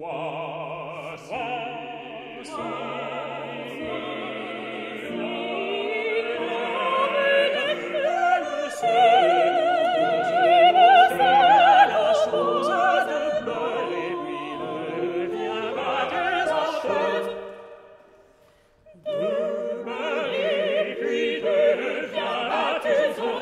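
Operatic vocal quartet — soprano, mezzo-soprano, tenor and baritone — singing with wide vibrato over piano accompaniment. The music breaks off to near silence about 18 seconds in and resumes a second later.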